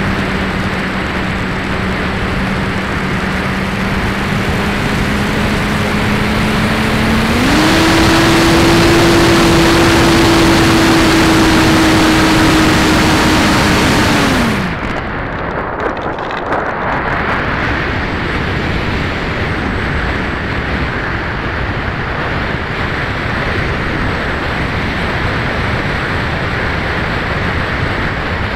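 Electric motor and propeller of a Max-Thrust Lightning 1500 RC glider heard from a camera on board. The motor hums steadily, jumps to a higher pitch about seven seconds in as the throttle goes up, then winds down and cuts out about halfway through. After that only wind rushes past the airframe as the glider glides unpowered.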